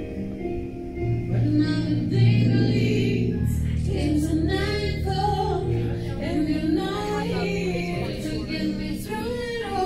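A song playing: a sung vocal melody over sustained instrumental backing.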